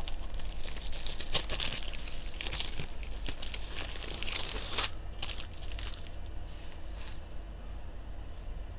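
Plastic packaging crinkling and rustling as it is handled, dense for about five seconds, then a few scattered crackles that die away about seven seconds in.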